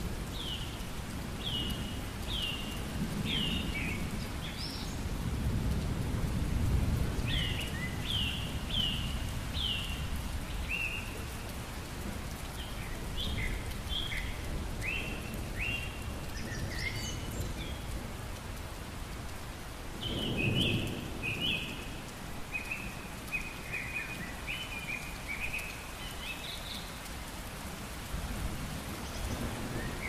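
Steady rain with low thunder rumbling, swelling a few seconds in and again about two-thirds through. Over it, a bird sings in bouts of short, quickly repeated falling chirps.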